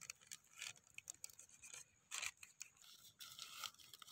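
Faint, irregular crackling and snapping of a wood campfire burning.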